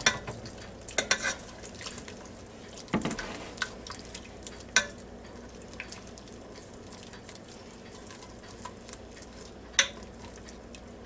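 Wire whisk stirring flour-and-milk gravy in the white inner pot of a Ninja FOODi pressure cooker, with a steady scraping swish. The wires click and knock against the pot's side, in a cluster about a second in, again around three and five seconds, and once sharply near the end.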